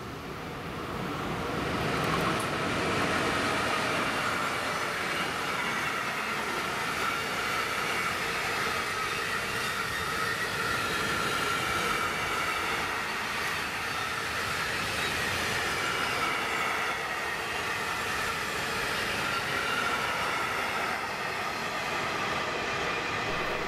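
A freight train passes: a class 155 electric locomotive comes by about two seconds in, followed by a long rake of grain hopper wagons rolling past, with a steady high whine from the wheels.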